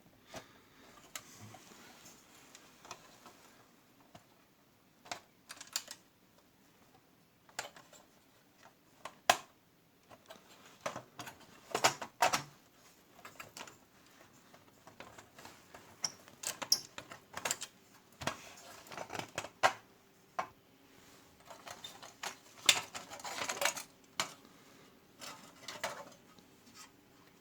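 Tinplate toy car body being handled and opened up: irregular light metallic clicks, taps and short scrapes.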